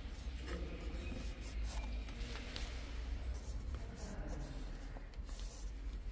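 Hand rustling and rubbing a microfiber cloth against plastic engine-bay trim, with scattered light scrapes and clicks over a steady low hum.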